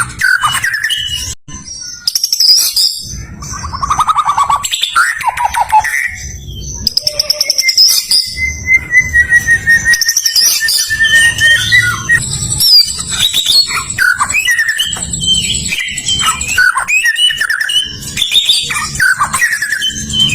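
White-rumped shama (murai batu) singing a long, varied song of rapid whistles and trills, with one long held whistle in the middle.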